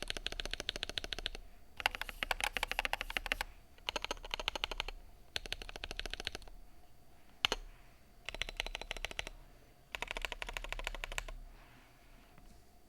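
Typing on a GMMK Pro mechanical keyboard: quick runs of key clicks in bursts of a second or so, with short pauses between them, and one single sharp keystroke in a gap about halfway through.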